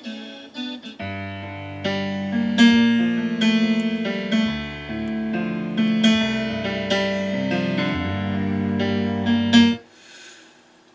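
Piano-led music playing from an MP3 player through the auxiliary input of a converted vintage Chevrolet truck radio and its speakers. It starts after a few brief clipped snippets in the first second and cuts off abruptly near the end.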